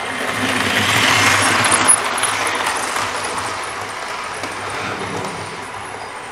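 OO gauge model train running past close by: the whirr of its motor and the rumble of its wheels on the track swell about a second in, then fade slowly, with a sharp click just before two seconds in.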